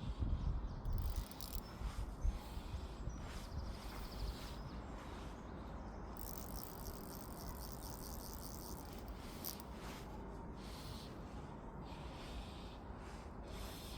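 Fly reel's ratchet clicking in spurts as a hooked brown trout pulls line off, with a longer continuous buzz of rapid clicks for a few seconds in the middle; some low rumble of wind or handling at the start.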